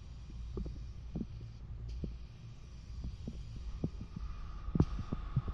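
Gravity-feed paint spray gun hissing as it sprays white base coat, the air cutting off briefly about two seconds in and again near the end as the trigger is released, over a low steady hum.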